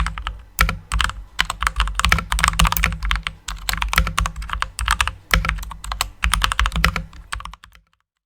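Fast typing on a custom-built mechanical keyboard with lubed switches and clipped, lubed stabilizers: a quick, irregular stream of keystroke clacks that stops just before the end.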